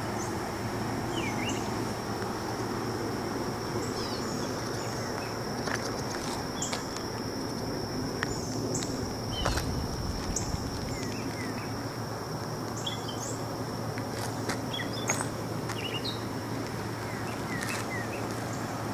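Outdoor ambience: a steady high-pitched insect drone runs throughout, with birds chirping here and there over a low steady rumble.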